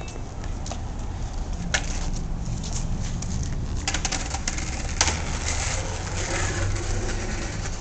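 Bare bush branches rustling and scraping against a handheld camera as it is pushed through them, thickest in the second half, over a steady low rumble of wind and handling noise on the microphone, with a few sharp clicks.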